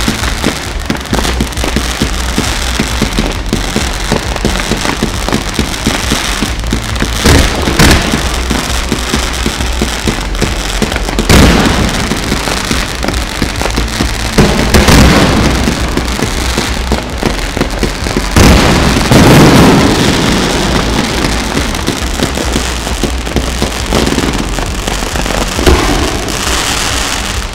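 Fireworks display: dense, continuous crackling and popping of bursting shells and sparkling effects. Several louder bangs stand out, around a quarter of the way in, near the middle, and a run of heavier booms about two thirds of the way through.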